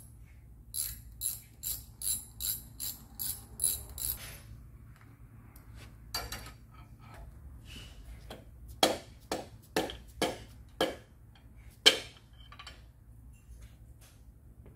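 A ratchet wrench clicking in an even run of about three clicks a second for a few seconds, working a connecting-rod nut during a Pontiac 350 V8 teardown. After a pause come a series of sharp knocks about half a second apart, the loudest near the end.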